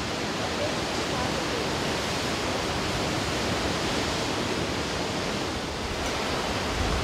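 Steady rush of sea waves breaking and foaming over rocks.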